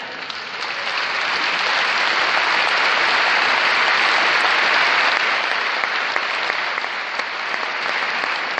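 Large audience applauding, swelling to a peak about halfway through and then slowly easing off.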